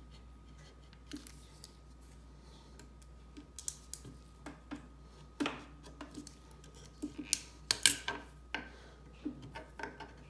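Old wood veneer being pried up and broken off a sewing-machine cabinet top with a small blade and fingers: an irregular string of small clicks, cracks and scrapes, busiest and loudest in the second half.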